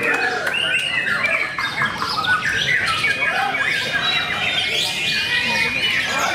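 White-rumped shama singing a rapid, varied song of whistles, glides, trills and chattering notes, overlapped by other songbirds singing.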